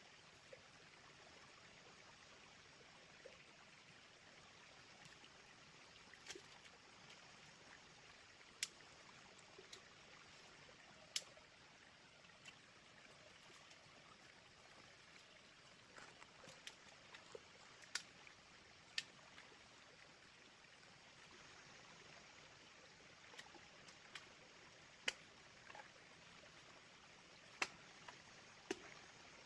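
Small river flowing, a faint steady rush of water, with scattered sharp clicks at irregular intervals of a few seconds.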